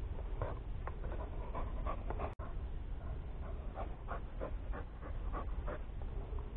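Podenco dog panting quickly and close, a few short breaths a second.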